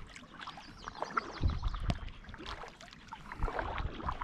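Kayak paddle strokes: the blades dipping and pulling through calm water, with small splashes and drips and a couple of low thuds.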